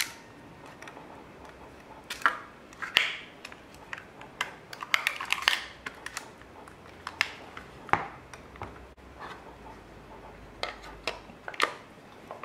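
Scattered sharp clicks and short metallic clatters from a Werramatic 35mm camera being worked with its back off: shutter releases and film-advance clicks as the newly loaded film is wound on a few frames. Near the end there are more clicks as the back is fitted onto the body.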